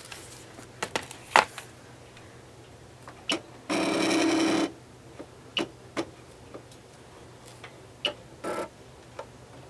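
Scattered light clicks and taps from handling the craft book and the Cricut cutting machine. About four seconds in comes a loud buzzing tone lasting about a second, and a shorter, weaker one near the end.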